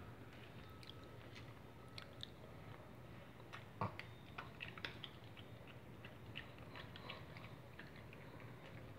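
A Shih Tzu biting and crunching on a strand of dry spaghetti: faint, irregular crisp clicks and snaps, the sharpest about four seconds in.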